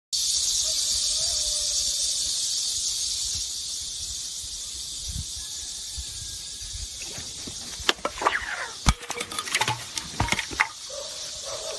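A steady, high-pitched insect drone, like cicadas in trees by a lake, slowly fading over the first several seconds. In the second half come a run of sharp knocks and splashes.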